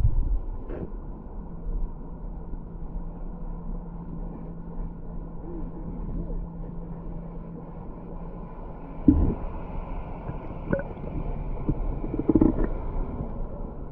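Muffled underwater sound picked up by a submerged action camera: low water sloshing and rumbling with a few dull knocks, and a steady low hum for several seconds in the first half.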